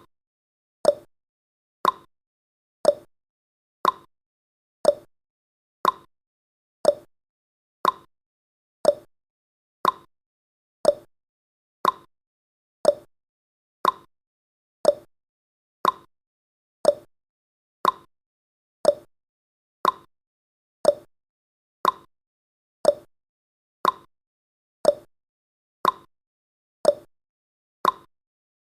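Countdown timer's tick sound effect, one short, sharp tick every second that dies away at once, evenly spaced.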